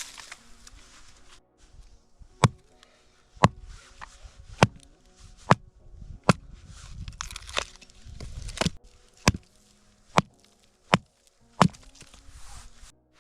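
Axe chopping firewood: about a dozen sharp, loud strikes, roughly one a second.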